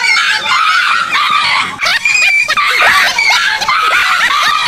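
Dog yelping and barking in alarm at a toy tiger pushed toward it: a rapid, unbroken string of short high-pitched yelps.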